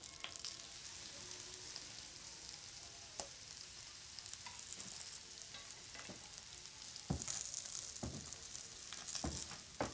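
Food sizzling in a frying pan, a steady hiss, with a few sharp knocks in the last few seconds.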